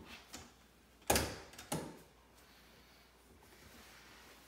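Someone climbing stairs on aluminium underarm crutches: crutch tips and footsteps knocking on the stair treads. There are a couple of small clicks at the start, then two strong knocks about a second in, half a second apart.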